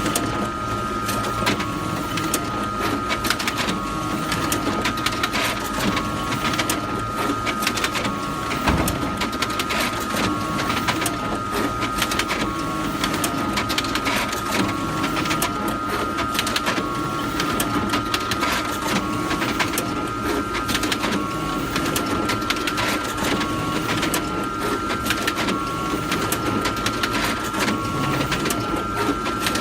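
Photocopier running continuously: a steady high whine over rapid mechanical clicking, with a shorter tone just below the whine that comes and goes every couple of seconds.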